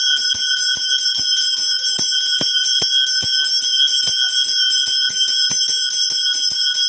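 Brass hand bell (ghanta) rung rapidly and without pause during temple puja, a steady metallic ringing struck about five times a second.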